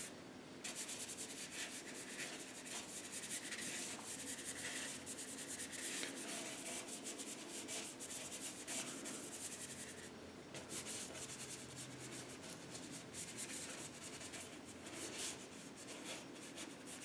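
Paintbrush rubbing acrylic paint onto canvas in continuous scrubbing strokes, briefly pausing about half a second in and about ten seconds in.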